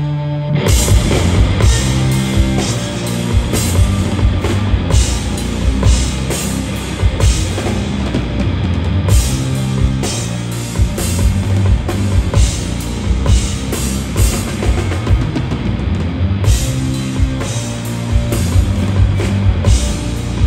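Live rock band playing an instrumental passage: a held guitar note gives way about half a second in to the full band, with a driving drum kit and electric guitars.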